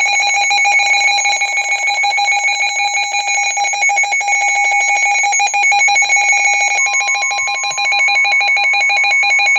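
Weather radio receiver sounding its alert alarm for a severe thunderstorm warning: a loud, rapidly pulsing electronic alarm tone. About seven seconds in, the broadcast's steady 1050 Hz warning tone joins beneath it. The alarm cuts off sharply near the end.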